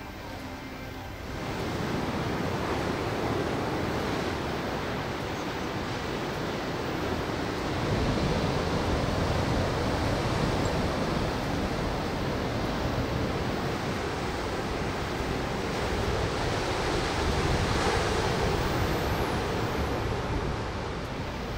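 Surf breaking on a sandy beach: a steady rush of waves that swells louder now and then. It comes in about a second in, as faint music stops.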